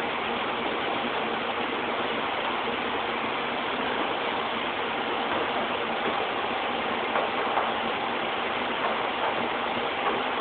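Steady factory machinery din, an even dense noise with a faint steady hum, with a few light clinks of metal parts being handled in its second half.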